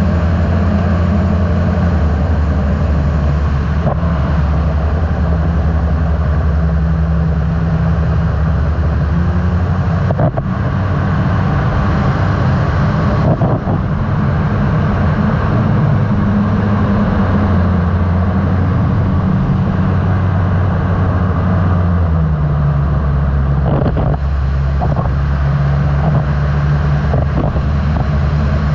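Open-cockpit microlight aircraft's engine running steadily in flight, with wind rushing past the microphone. The engine note shifts slightly about ten seconds in and again after about twenty seconds.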